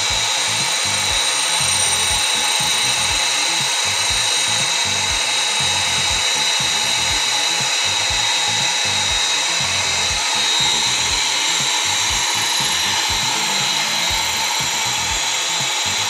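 Minute Key automated key-duplicating kiosk running while it makes a key, its internal cutting mechanism whirring with a steady high whine.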